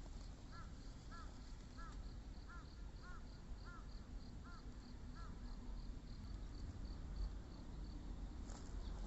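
A bird calls eight times in a quick, even series, then stops. Under it an insect chirps steadily at about three high pulses a second.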